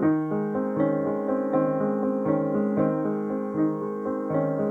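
Fazioli grand piano played live: an even succession of chords in the middle register, a new one struck about every three quarters of a second.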